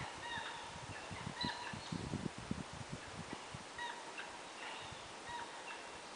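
Faint, repeated short bird calls from the forest across the water, coming thickly at first and thinning out later, over a low, uneven rumble of wind and water.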